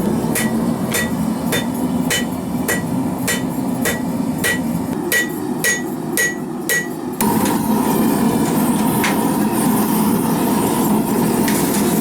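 Hand hammer forging hot carbon steel on an anvil, about three blows a second, each with a short metallic ring, over the steady rush of a propane forge burner. About seven seconds in the hammering stops abruptly, leaving the burner's steady rush.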